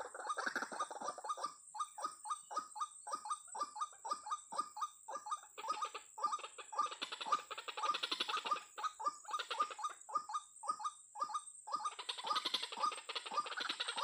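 White-breasted waterhens calling: a long run of short repeated croaking notes, about three a second, turning into denser, harsher chattering around six to eight seconds in and again near the end.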